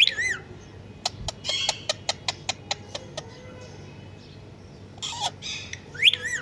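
Pet parrot calling in short, pitch-bending squawks, with a run of sharp clicks about a second in and more calls near the end.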